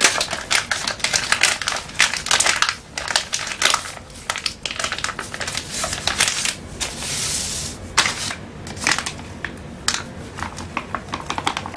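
Crinkling and crackling of a paper-and-plastic powder packet being handled and torn open, with a short hissing tear about seven seconds in. Near the end the white powder is poured out onto the stone floor.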